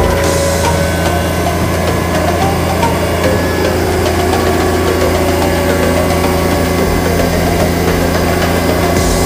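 John Deere tractor engine running steadily at an unchanging speed, with no revving.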